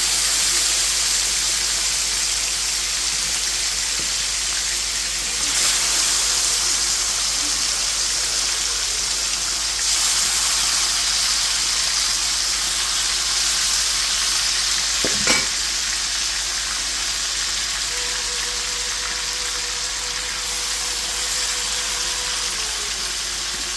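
Chicken pieces frying in hot oil and caramelised brown sugar, a steady loud sizzle that swells a little twice. This is the browning stage for stew chicken. One sharp tap of a utensil comes about two-thirds of the way through.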